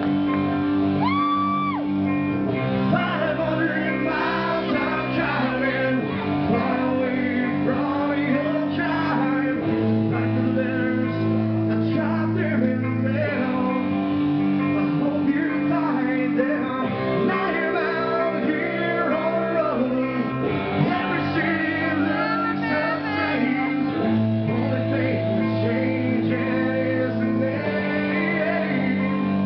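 Live rock band playing, with a man singing and shouting into the microphone over long held guitar chords that change every three to four seconds.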